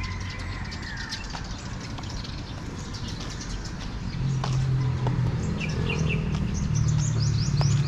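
Many birds chirping, with a run of quick rising calls near the end. A low steady hum comes in about four seconds in.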